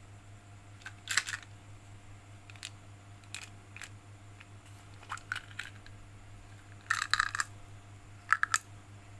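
Small hard-coated candies clicking and rattling against a plastic bottle-shaped candy container as it is handled and emptied into a palm. Scattered clicks, with a denser rattle about seven seconds in and three sharp clicks near the end, over a faint steady hum.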